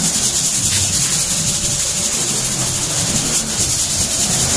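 A steady loud hiss, strongest high in the treble, over a low rumble.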